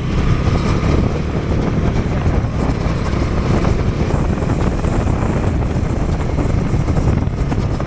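Motorcycle riding along, its engine and the ride noise making a steady, dense sound with a strong low rumble. It is picked up by the action camera's built-in microphone with no external mic.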